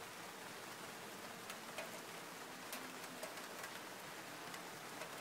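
Steady rain falling, with scattered sharp ticks of drops landing close by, irregularly spaced.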